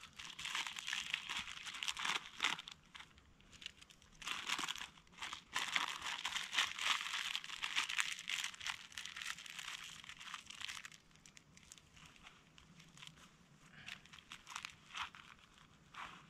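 A packet wrapper crinkling and rustling as it is handled and opened by hand, in two busy spells over the first ten seconds or so, then only a few faint crackles.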